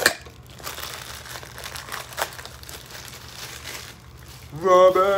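Plastic packaging crinkling and rustling as a toy figure is unwrapped from its collectible soda can, after a sharp click at the start. Near the end a man's voice calls out in a long, drawn-out note.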